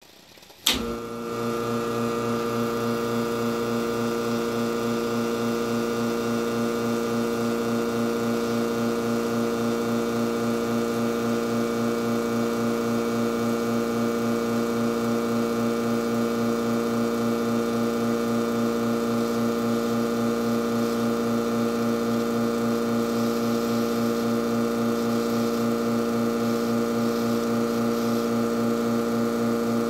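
Rancilio espresso machine's pump switched on with a click about half a second in, then running with a steady, even hum as it pushes water through the coffee puck to pull an espresso shot.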